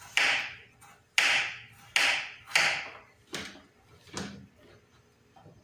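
Kitchen knife chopping firm papaya into cubes and striking a plastic cutting board: six sharp knocks, the last two fainter.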